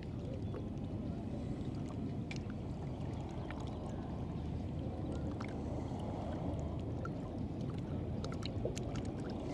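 Steady low rush of moving water, with faint scattered ticks and drips over it.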